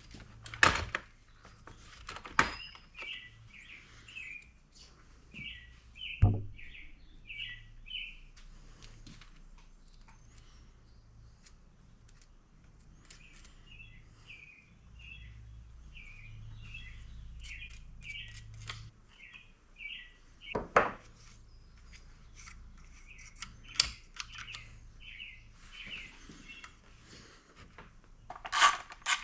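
A bird singing runs of short, quickly repeated chirps in three spells, over a handful of sharp clinks and knocks from tools or parts being handled. The knocks are the loudest sounds.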